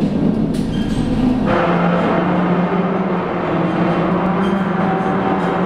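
Drive machinery of a 406 mm coastal gun turret running as the gun moves: a loud, steady mechanical hum. About a second and a half in, the sound changes and becomes fuller, with a slightly lower hum and more whirring above it.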